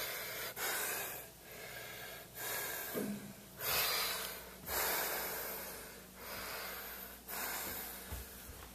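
A person breathing heavily and unsteadily, about one breath a second, each breath a loud rushing hiss.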